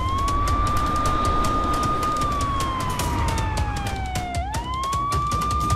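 Police car siren wailing: the tone sweeps up quickly, holds high for about two seconds, then slides slowly down and sweeps up again a little over four seconds in, over a low rumble.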